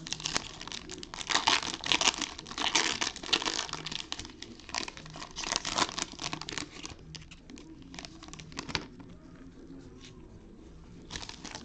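Foil wrapper of an Optic basketball card pack being torn open and crinkled in the hands. The crackling is dense for most of the first nine seconds, then dies down, with a short burst near the end.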